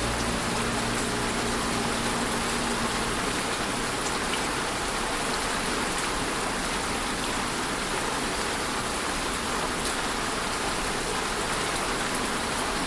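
Steady rain falling, an even hiss of many drops that stays level throughout.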